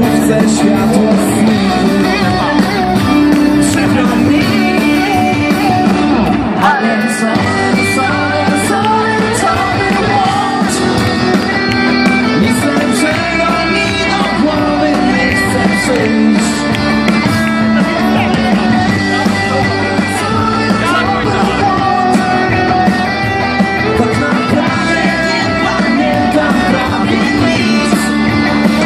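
A live rock band playing loud: electric guitars, drum kit with regular cymbal hits, and a singer, heard from within the crowd.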